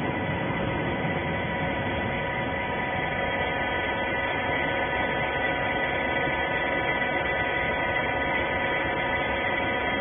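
Hydraulic rag baler's electric motor and hydraulic pump running, a steady hum with several steady high tones over it.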